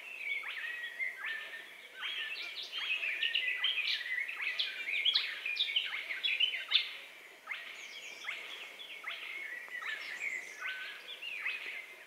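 Spotted crake calling without pause, short calls repeated in a steady rhythm, over a chorus of other birds singing.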